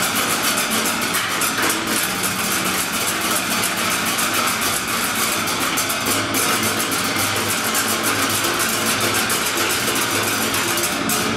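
Percussion ensemble striking metal barrels (oil drums) with drumsticks: a fast, dense stream of metallic hits, opening into more separate strokes near the end.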